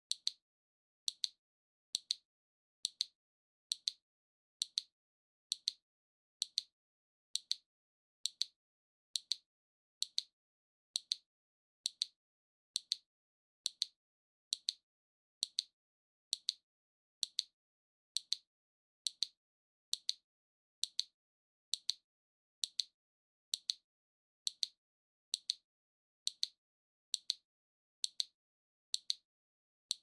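Waving lucky cat (maneki-neko) figurine's arm mechanism ticking as the paw swings. Thin, high, evenly spaced ticks, a little under one a second.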